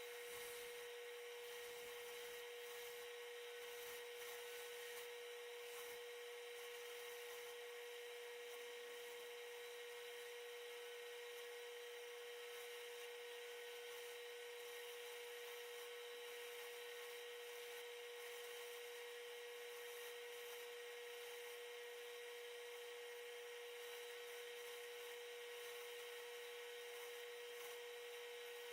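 Faint, steady hum: one constant mid-pitched tone over an even hiss, with no change in level.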